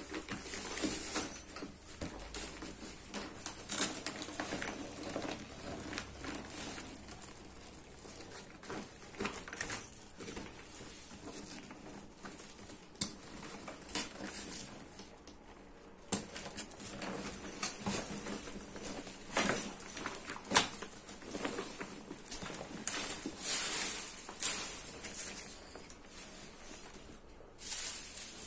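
A square Rappi delivery backpack's nylon shell and foil-lined insulated lining rustling and crinkling as it is handled and unfolded, with irregular sharp clicks and taps throughout.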